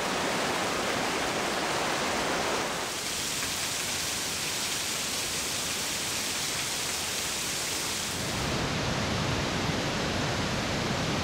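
Steady rush of a rain-swollen mountain stream and waterfall. It turns brighter and hissier about three seconds in, then deeper and lower about eight and a half seconds in.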